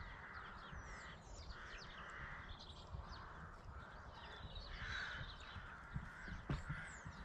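Crows cawing over and over, about one call every half to one second, with thin high chirps of small birds and a low rumble underneath.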